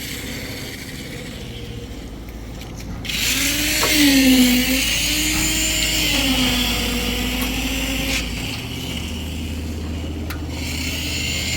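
A small engine running on a concrete pour, its speed rising and falling several times, with a hissing noise that starts about three seconds in.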